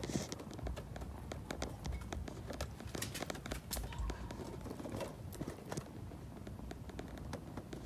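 Close-up sounds of kittens nuzzling at a mother cat's belly: a run of small clicks and rustles over a steady low rumble.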